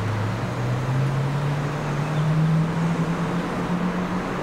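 Steady rumble of traffic with one engine rising in pitch over the first three seconds, then holding level, like a road vehicle accelerating.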